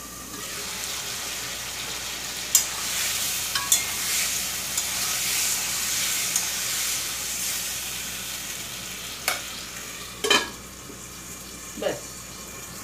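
Tomatoes frying in mustard oil in a steel kadai, sizzling steadily as a spatula stirs them, with a few sharp clinks of metal against the pan. The sizzle weakens once the steel lid goes back on, about ten seconds in.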